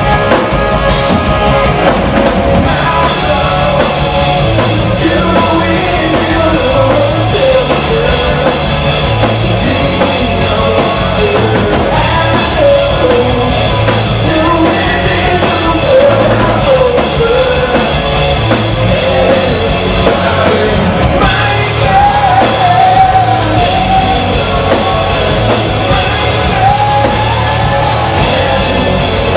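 Live rock band playing at full volume: electric guitars, bass and drum kit under a lead singer's vocal.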